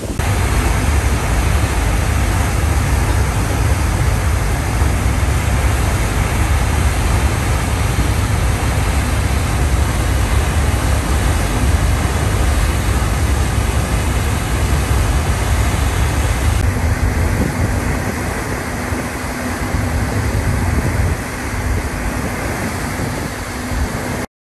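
Steady rumble and rushing noise at the stern of a moving motor ship: the engines' drone with the churning propeller wake and wind over the deck. Partway through the sound shifts and a steady low hum comes in; it cuts off suddenly near the end.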